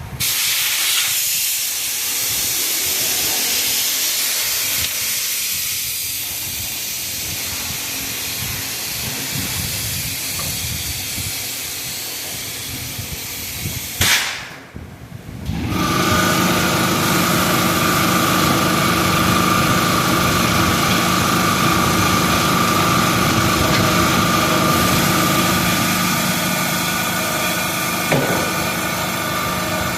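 Loud, steady hiss of air, cut off with a click about fourteen seconds in. After a short lull, a machine starts and runs steadily with a high whine, with a small knock near the end.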